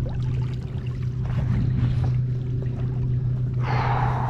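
Water splashing against a kayak while a fish is fought at the side, with a louder burst of splashing near the end, over a steady low hum.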